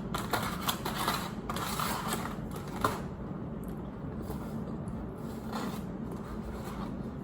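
Eating sounds: soft crackles and small clicks of food being handled and chewed, busiest in the first few seconds, with one sharper click about three seconds in.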